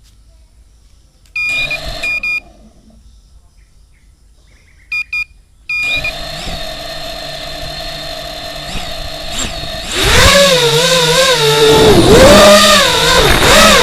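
FPV drone: a few short electronic beeps, then the motors spin up to a steady high whine. About ten seconds in they are throttled up loudly, the pitch rising and falling with the throttle.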